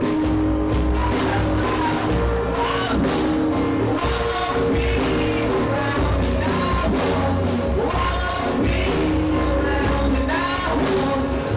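Live band playing a song: drum hits and a heavy, steady low end under held notes and a curving melody line.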